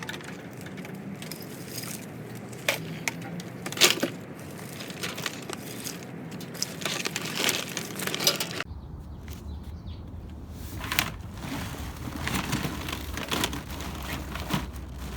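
Bundles of insulated scrap wire being pushed and packed into a bin: irregular rustling, crackling and knocks.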